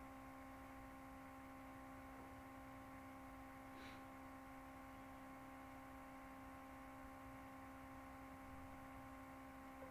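Near silence: room tone with a faint steady electrical hum, and one brief faint sound about four seconds in.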